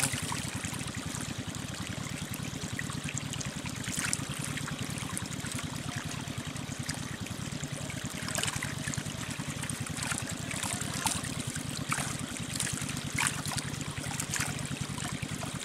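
Shallow water trickling and running steadily through a narrow channel cut in mud, with scattered faint clicks over the flow.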